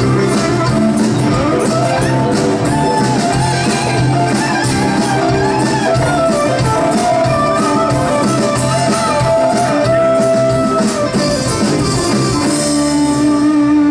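Live band playing the closing bars of a country-rock song: drums, bass, electric and acoustic guitars with long held and sliding lead notes. Near the end the beat stops and the band holds a final chord.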